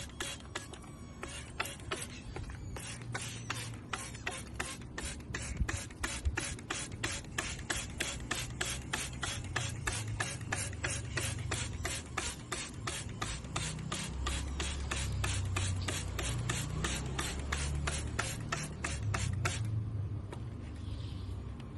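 Hand spray bottle misting birds for their bath: quick, even squirts about three a second, stopping near the end.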